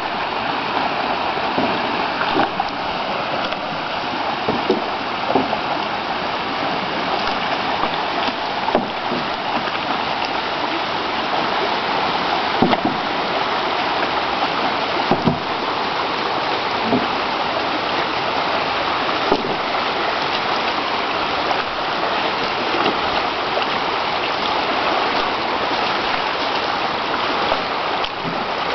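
Shallow river rapids rushing steadily, with a short splash or knock every two or three seconds as a pole is planted to push a dugout canoe upstream.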